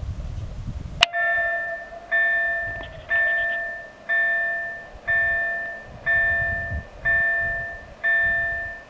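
Level-crossing warning bell ringing in regular strikes, about one a second, each ringing out and fading before the next. It starts suddenly about a second in and signals a train approaching the crossing. Wind on the microphone before it starts.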